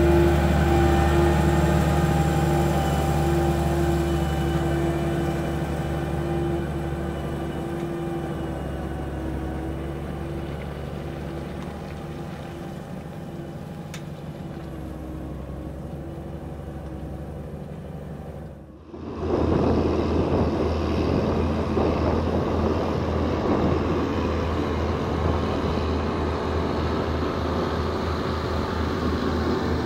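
Diesel engine of a Case IH four-wheel-drive tractor pulling earth scrapers passes close by and its steady running fades gradually as it moves away. About two-thirds through, the sound cuts to a louder, rougher mix of several heavy tractor engines working under load.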